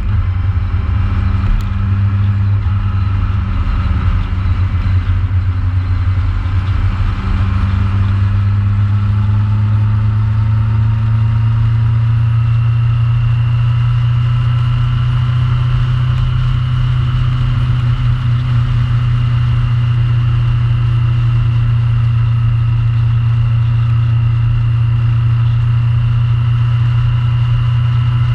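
Yamaha FJR1300 motorcycle's inline-four engine running steadily under way, a loud low drone over wind and road noise. Its pitch rises slightly about ten seconds in, then holds steady.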